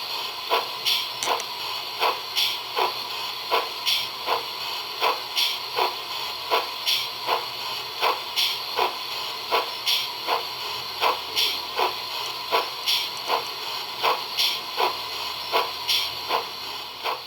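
Sound-decoder steam exhaust of a GWR 45xx 2-6-2T tank engine, played through a 0 gauge model's speaker: an even chuffing at about two to three beats a second over a steady hiss.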